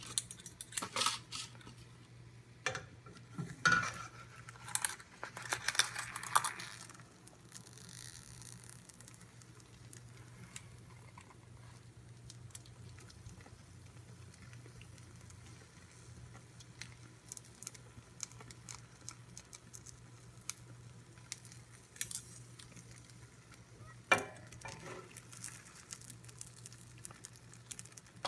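A slotted spatula scraping and knocking against a non-stick frying pan while an omelet is worked and folded, in a cluster over the first several seconds and again briefly near the end. Between these there is a faint sizzle of eggs frying and a low steady hum.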